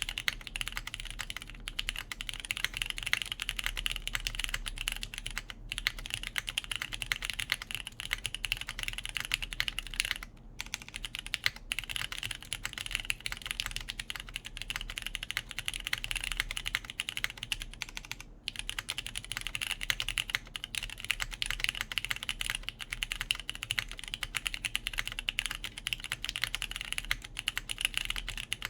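Continuous fast typing on a JJW Cloudline V2 mechanical keyboard, O-ring mounted, with lubed Cherry MX Brown switches, a polypropylene plate and GMK Sloth ABS keycaps. The keystrokes run densely, broken by a few brief pauses.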